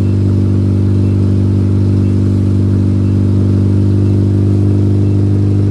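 Car engine running at a steady fast idle just after a cold start, before the revs have come down.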